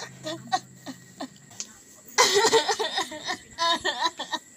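A young woman's acted laughter as a madwoman, in short scattered bursts with a louder run of laughs about two seconds in.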